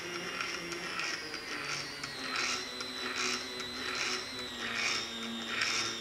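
NEMA 17 stepper motor whining as it spins the wire gripper head under speed control, its pitch falling slightly and then holding steady. Background music with a steady beat plays over it.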